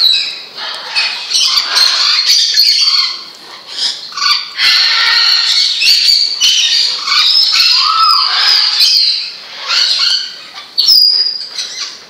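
Parrots squawking and whistling in a near-continuous run of calls, with a few short gaps and some rising whistles.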